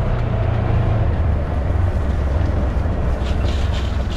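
Diesel tractor engine running steadily, its note dropping a little about a second in, with a few short clatters near the end.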